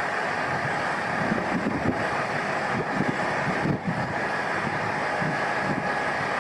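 Noto Railway NT200-series diesel railcar idling at the platform, a steady drone, with gusts of wind buffeting the microphone.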